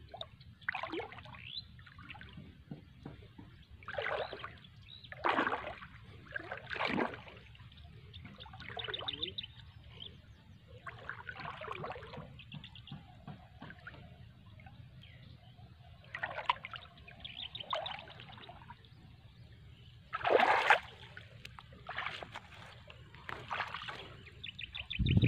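Water splashing and dribbling off a shrimp net as it is hauled through shallow, muddy river water, in uneven bursts with quiet gaps between.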